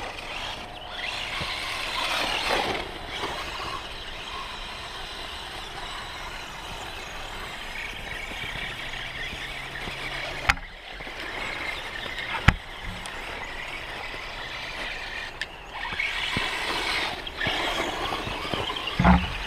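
Electric motors and gear drives of radio-controlled trucks whining as they drive, swelling louder at times. Two sharp knocks come about two seconds apart in the middle.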